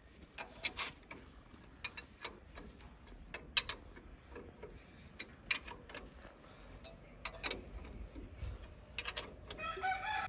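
Steel ring spanner working the bolts of a tractor's front bracket: irregular metallic clicks and clinks as the wrench is fitted, turned and knocks against the bolt heads and cast iron.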